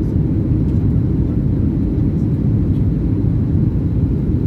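Steady low rumble of engine and airflow noise inside a Boeing 737-800 cabin during the landing approach, with the flaps extended.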